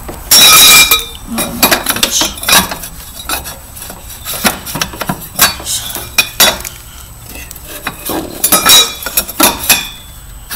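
Metal exhaust pipe clinking and clanking against the frame of a Razor MX350 electric dirt bike as it is strapped on: a run of sharp knocks with ringing metal, loudest about half a second in and again near the end.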